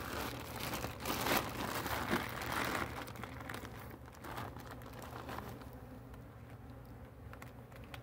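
Crinkly rustling and light crackling of handling: gloved hands and suit fabric working at a wired wooden comb frame while a piece of comb is fastened in. Busiest in the first three seconds, then fading to scattered faint rustles.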